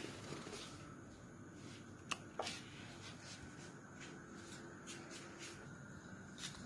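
Quiet room with faint rustling and handling noise, and two short clicks about two seconds in.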